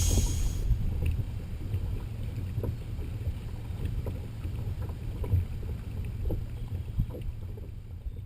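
Low, uneven wind rumble on the microphone with scattered faint knocks, as on a kayak sitting on the water.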